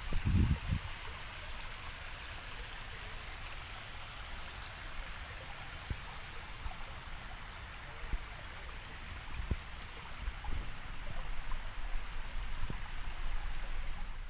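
Steady hiss of a small stream or falls running through a rocky ravine. There is a low rumble in the first second and a few soft thumps later on.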